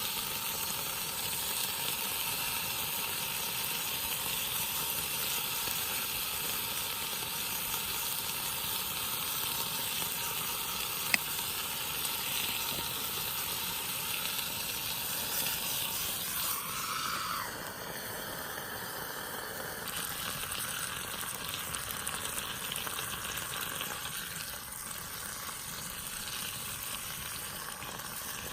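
Food sizzling as it fries in a pan, a steady hiss with a single sharp click a little before halfway; the sizzle drops slightly in level about two-thirds of the way through.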